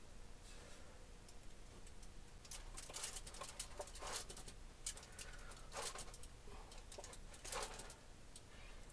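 Hands working softened butter over a raw boneless prime rib roast in a foil pan on a wire rack: faint, irregular squishing and rustling handling sounds.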